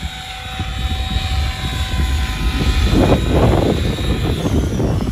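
700-size electric RC helicopter flying low, its motor and rotor giving a steady whine, with a rushing rotor noise that swells to its loudest about three seconds in as the helicopter comes close.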